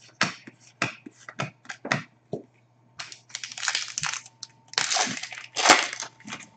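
Trading cards being thumbed through in a quick run of sharp clicks, then the foil wrapper of an Upper Deck Series 1 hockey card pack crinkling and tearing open, loudest near the end.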